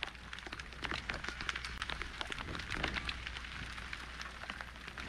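Rain falling, with many close raindrops tapping sharply in quick, irregular succession.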